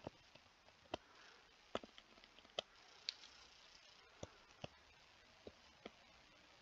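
Faint, sharp clicks at irregular intervals, about nine in all, from a stylus tapping on a tablet screen as digits are erased and rewritten.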